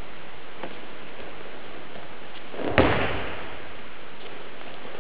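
A single thud of a body landing on the training mat in an aikido breakfall, nearly three seconds in, over a steady background hiss.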